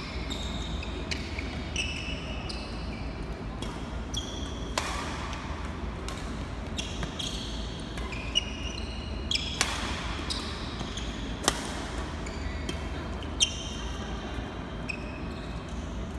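Badminton rallies on an indoor court: rackets striking the shuttlecock with sharp cracks, and shoes squeaking briefly and often on the court floor, over a steady low hum. Two cracks in the second half stand out louder than the rest.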